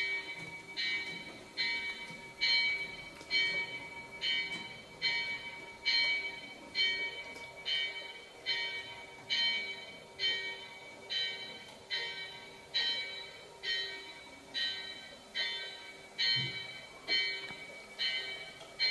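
Small chapel bell tolling steadily, a little more than once a second, each high clear strike ringing on until the next. A faint steady hum lies underneath.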